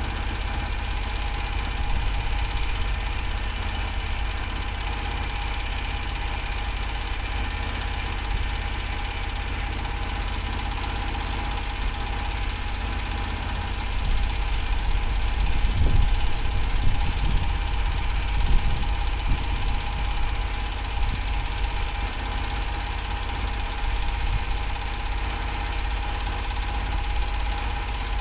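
Engine of a Norwood HD38 portable sawmill running steadily. About halfway through it gets louder for several seconds, with a few heavy low knocks.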